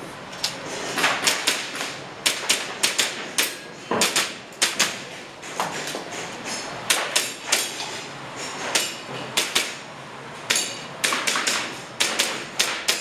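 Airsoft pistol shots, about two dozen sharp clacks fired in quick pairs and short strings with brief pauses between them.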